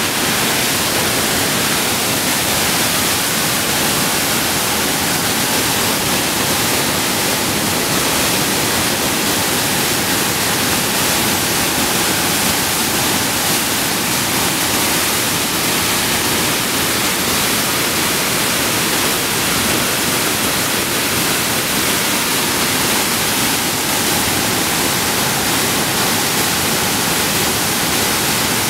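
Floodwater of the New Haven River, swollen by Hurricane Irene's rain, pouring over Bartlett Falls in a loud, steady rush.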